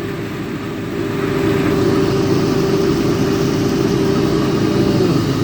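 Boat engine running steadily, a low drone that grows a little louder about a second in.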